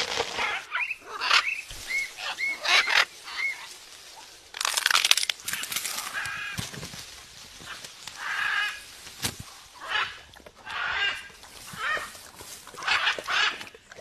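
Blue-and-gold macaw calling in a run of short squawks. It starts with a few soft chirps, then gives louder squawks about once a second in the second half, with a brief noisy burst near the middle.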